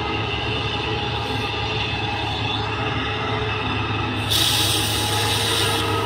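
Heavy diesel machinery running steadily with a deep drone. About four seconds in, a loud hiss lasts for about a second and a half.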